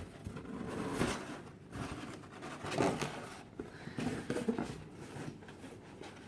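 Cardboard mystery box being opened by hand: irregular scraping, rustling and light knocks of cardboard and packaging as the flaps and contents are handled.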